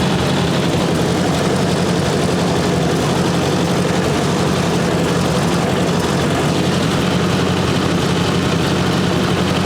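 1958 Ford 851 tractor's four-cylinder gasoline engine idling steadily while its hydraulic system is being bled.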